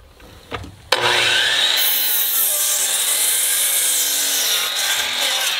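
DeWalt 12-inch sliding compound miter saw with its original blade starting up suddenly about a second in and crosscutting a dry 2x10, a loud, dense sawing noise that goes on through the cut.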